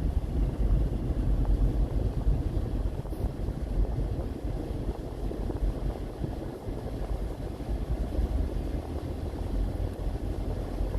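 Steady low rumble of engine and road noise heard inside a moving vehicle.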